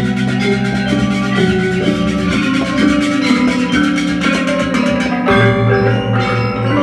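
Balinese gamelan music: bronze metallophones ringing over a repeating low beat.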